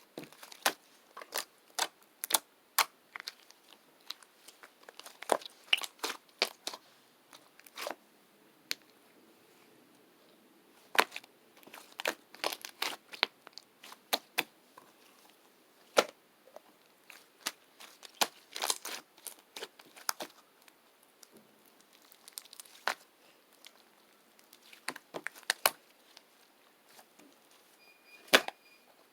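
Close handling noise: irregular sharp crackles and crinkles, some in quick clusters, with short quiet gaps between them.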